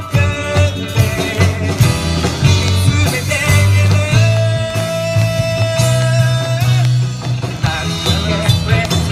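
Live rock band playing through a PA system: male vocalists singing over electric guitars, bass, keyboards and drums, with one long held note from about four seconds in.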